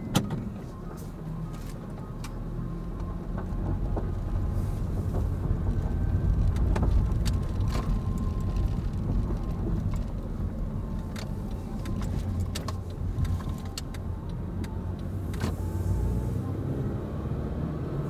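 Car engine and road noise heard from inside the cabin, a steady low rumble that swells as the car pulls away and speeds up, then eases. Occasional faint clicks and knocks from the cabin.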